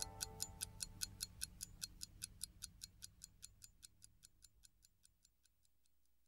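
Rapid, even ticking, about five ticks a second, fading steadily until it dies away about four seconds in, then near silence.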